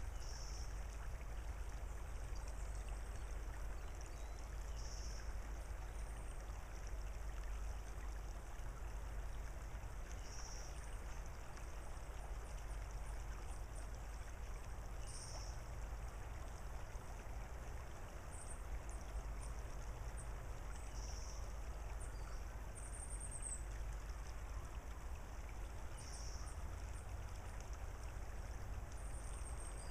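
Quiet creek-side ambience: a soft, even wash of slowly trickling water over a low rumble, with a bird's short high call repeating about every five seconds and a few faint high chirps.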